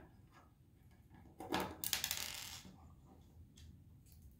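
Small handling sounds of assembling a circuit board: a light click from a small Phillips screwdriver working an M2.5 screw, then a louder rustling clatter lasting about a second, about a second and a half in, as the screwdriver is set down on the hard tabletop.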